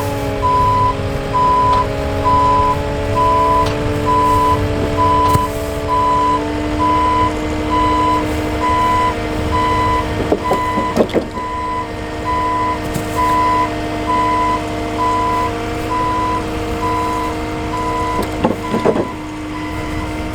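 A work vehicle's reversing alarm beeping steadily, about three beeps every two seconds, over its running engine, with a few knocks about ten seconds in and again near the end.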